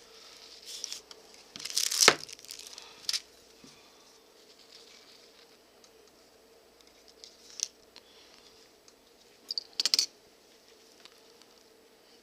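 Leather being handled and hand-sewn: a few short scratchy rasps, as of thread drawn through leather, the loudest about two seconds in and a quick cluster near ten seconds, with light rustling between.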